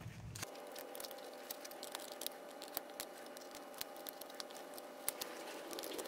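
Faint, irregular small clicks and taps of pliers working on a jumper-cable clamp, over a steady faint hum.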